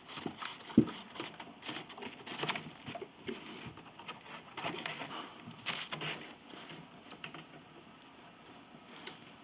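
Light metal clicks, taps and scrapes from handling a Swage-It hand swaging tool while working free a crimped cable clip stuck in its jaws, with one sharp knock about a second in and fewer sounds near the end.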